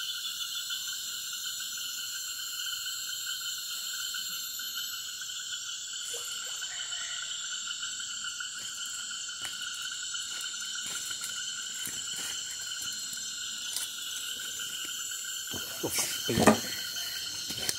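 Night chorus of frogs and insects in tropical forest: several steady high-pitched trills layered together. A single loud thump near the end.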